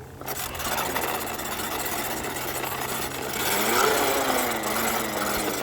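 Toy bubble lawn mower's small battery motor running with a steady whir and mechanical rattle as it is pushed along.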